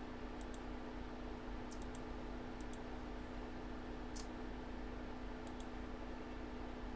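A few light clicks, several in quick pairs and one sharper click about four seconds in, over a steady electrical hum.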